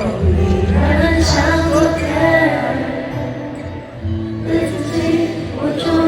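Live pop concert music heard from inside an arena: a band with a sung melody over a steady bass line.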